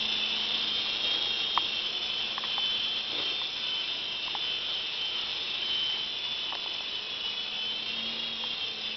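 Micro Mosquito miniature remote-control helicopter in flight: its small electric motors and rotors give a steady high-pitched whine, with a faint low hum underneath.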